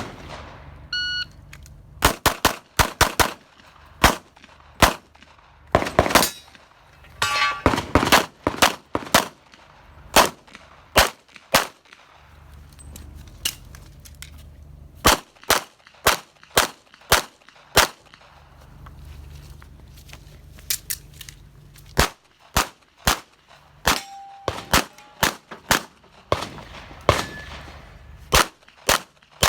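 Shot-timer start beep about a second in, then a long string of rapid pistol shots, many fired in quick pairs, from an STI Limited-division pistol in .40 S&W.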